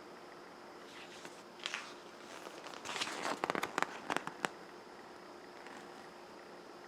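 Packaging crinkling and crackling as a product's user manual is taken out and handled: scattered crackles about a second and a half in, a denser run of sharp crackles from about three to four and a half seconds in, then quiet handling.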